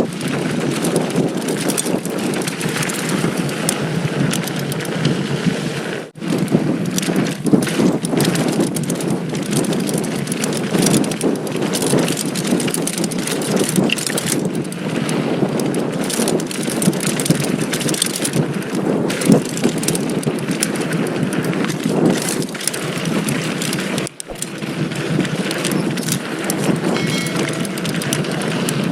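Mountain bike (2019 Giant Stance 2) riding down a loose dirt trail: tyres running over loose dirt and rocks, with the bike rattling. The noise drops away briefly twice.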